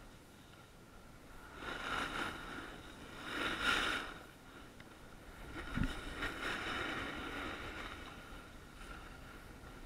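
Snow scraping and hissing under a rider's edges while descending a groomed piste, swelling with each turn three or four times, with wind on the helmet camera's microphone. A single short thump about six seconds in.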